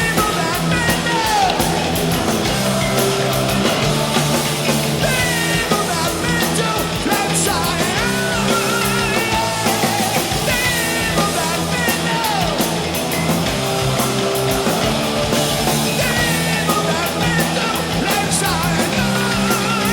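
Loud punk-style rock music with distorted guitars and a shouted, sung vocal.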